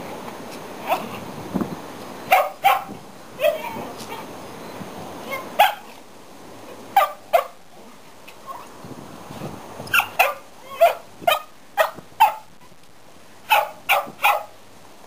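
A dog barking in short, sharp, fairly high-pitched barks, about seventeen of them in loose bunches of two to five with short pauses between.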